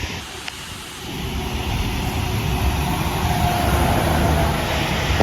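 A car passing by: its engine and tyre noise swell from about a second in, peak around four seconds, and begin to fade near the end.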